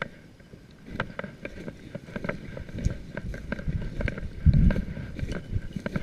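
Footsteps crunching irregularly through dry grass and crusted snow, with wind buffeting the microphone in a loud low rumble about four and a half seconds in.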